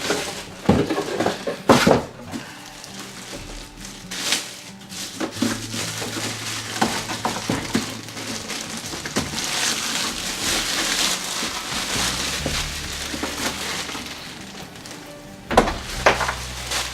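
Scattered knocks and clunks of the meat grinder's heavy stainless steel parts being handled, with a few seconds of rustling, as of packaging, midway through.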